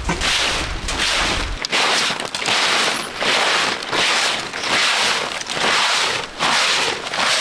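Soft grass broom sweeping a bare concrete slab in quick, even strokes, a swish with each stroke, about one and a half strokes a second.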